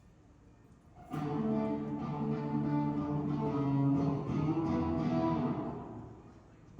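Guitar chords strummed and left ringing, starting about a second in and dying away near the end.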